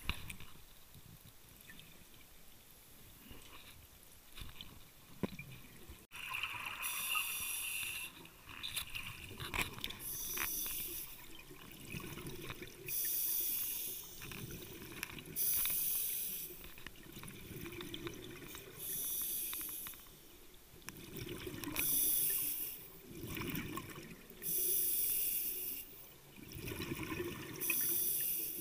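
Underwater scuba breathing through a regulator: from about six seconds in, hissing, bubbling bursts of breath come roughly every three seconds. Before that there are only quieter, muffled underwater sounds.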